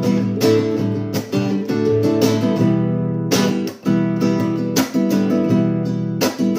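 Alhambra acoustic guitar strummed in a steady rhythm, chords ringing between the strokes, with no singing.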